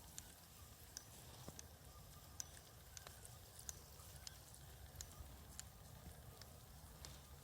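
Near silence: a faint low rumble with small, sharp clicks scattered irregularly about once a second.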